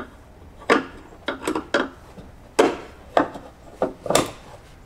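Short metal clicks and knocks, about eight at irregular spacing, as a new hood strut is worked onto its mounting studs by hand.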